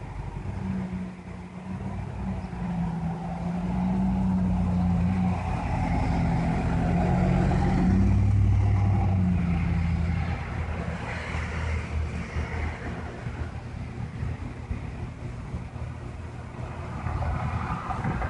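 A motor vehicle's engine running, growing louder toward the middle and then easing off.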